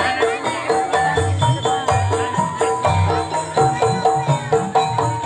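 Gamelan music for a kuda lumping horse dance: metal-keyed instruments repeat short notes at a few fixed pitches in a quick rhythm, over a low drum beat.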